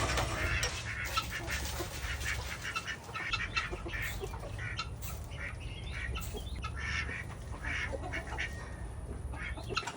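Poultry calling: many short, irregular calls from several birds in a flock, over a steady low rumble.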